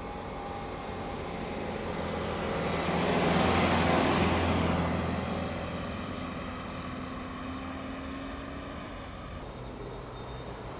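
Grey MINI hatchback driving past at low speed. Its engine and tyre noise swells to a peak about four seconds in, then fades as it pulls away.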